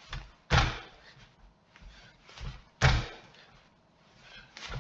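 Two heavy landing thuds on a pair of ForceDecks force plates as an athlete performs countermovement jumps, about half a second in and again near three seconds, with softer thumps from the jumps between them.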